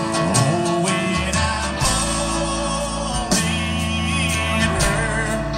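Country music played live by a band, with guitar, in an instrumental passage between sung lines.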